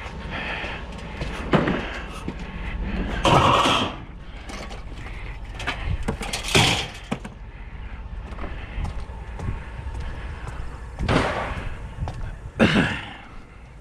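Scrap metal pieces and light fixtures being tossed onto a trailer: five loud clanks and crashes spread across the stretch, some ringing briefly, over a steady low rumble.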